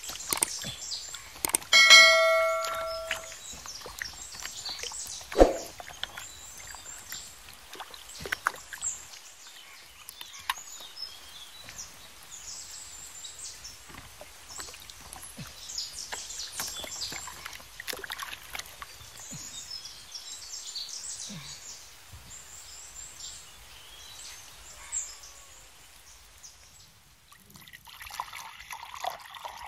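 Water sloshing and splashing as raw bananas are swished by hand in a tub of water. About two seconds in a metallic, bell-like ring sounds once for about a second and is the loudest thing here. Near the end, a stream of water pours into a glass bowl.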